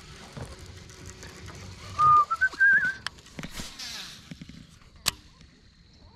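A person whistling a short phrase of a few notes that step upward, about two seconds in. It is followed by a brief whirring and a sharp click from a baitcasting reel as a cast is made and stopped.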